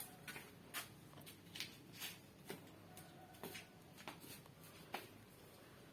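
Faint footsteps in sandals: short light slaps, roughly two a second.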